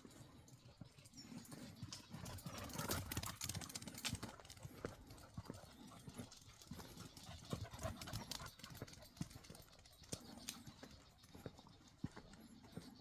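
Dogs' paws and claws pattering and clicking irregularly as they run and play, busiest a couple of seconds in.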